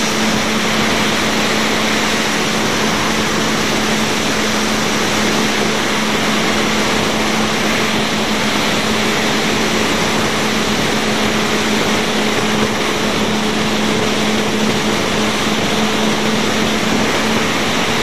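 Yamaha R1 inline-four engine running at a steady cruising speed, its note holding one pitch, under a heavy rush of wind at speed on a bike-mounted camera with an open-backed housing.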